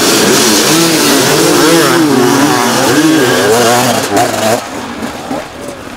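Hard enduro motorcycle engine revving, the throttle worked on and off so the pitch swings rapidly up and down. It falls away about four and a half seconds in.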